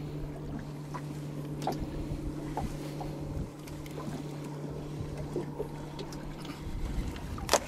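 A boat's motor humming steadily at a low pitch, with water sounds and a few light clicks; the hum drops out briefly about halfway and stops near the end, and a sharp click comes just before the end.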